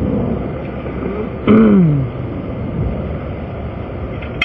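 Steady rush of interstate traffic passing. About a second and a half in, a person makes a short vocal sound that falls in pitch, and a sharp click comes near the end.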